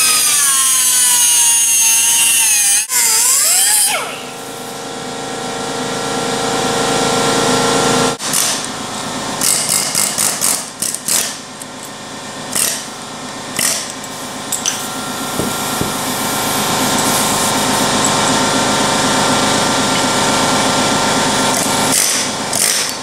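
Air-powered cut-off wheel (whizzy wheel) whining as it cuts into the steel race of a Chrysler 9.25 differential side bearing, its pitch sagging under load, for about the first four seconds. After that come short on-off bursts of air tools over a steady mechanical hum.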